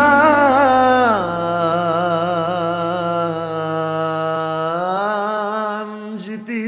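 A male voice singing long wordless held notes with vibrato in a Greek popular song. The voice slides down about a second in, holds a long low note, then rises again near the end.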